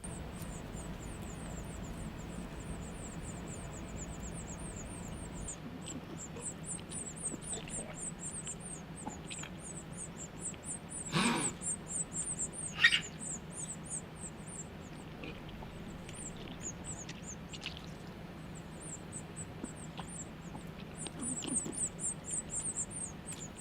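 Baby birds begging: runs of rapid, very high-pitched peeps, pausing now and then. A brief louder noise comes about halfway through, with a sharp short sound soon after.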